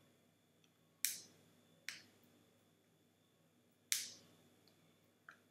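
Plastic gift packaging being bitten and pried open: four sharp plastic clicks or snaps, the loudest about a second in and near four seconds in, the last one faint.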